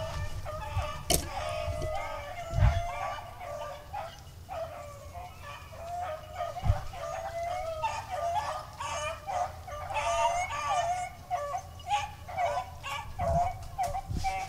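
Several beagles baying continuously, their voices overlapping, as they run a rabbit on its scent trail. A few sharp knocks stand out, the loudest about two and a half seconds in and again near the middle.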